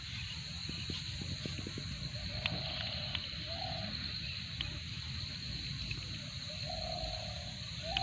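Steady outdoor background with a continuous high drone and a low rumble. Over it come a few small clicks and taps in the first second or so as a freshly caught fish is handled into a small plastic bucket.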